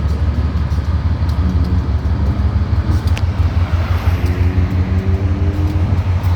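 A car on the move, a heavy low rumble that flutters constantly, with faint steady tones coming in from about a second and a half in.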